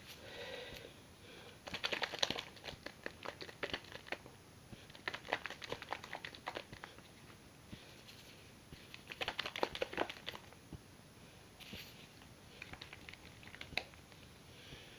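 Hands squishing and rubbing hair dye through hair close to the microphone: crackly, crinkling squelches in several bursts of a second or two, with short pauses between.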